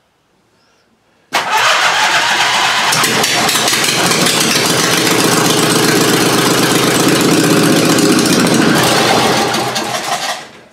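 26 hp Briggs & Stratton V-twin lawn tractor engine, running with no muffler, starts abruptly about a second in and runs loud and steady, then dies away near the end.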